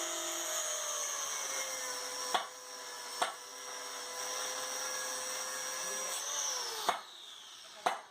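A small motor, likely a power tool, running with a steady whine; its pitch sags and drops away about six and a half seconds in. Four sharp clicks break in along the way.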